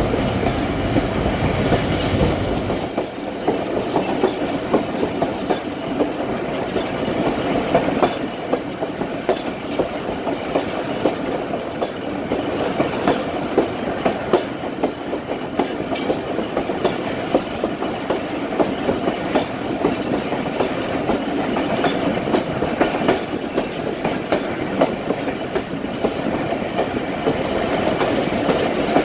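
Passenger train coach running along the track, heard from its open door or window: a steady rumble of wheels on rail with frequent clicks and clacks over rail joints. The low rumble is heavier for the first three seconds or so, then eases.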